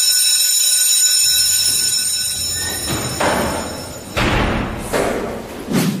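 Electronic intro sound effects: a steady, high, buzzing electronic tone over a low hum, then a series of four whooshes.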